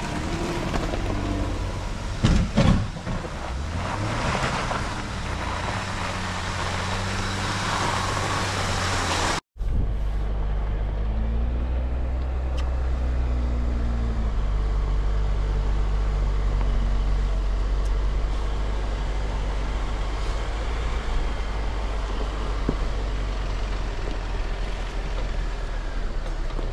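Off-road truck engines running at low speed on a snowy trail. About nine seconds in the sound drops out briefly, then a steady low engine drone follows while crawling along.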